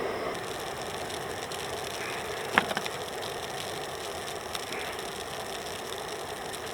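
Jetboil gas canister stove burner running with a steady hiss, just after being lit, with a single sharp knock about two and a half seconds in.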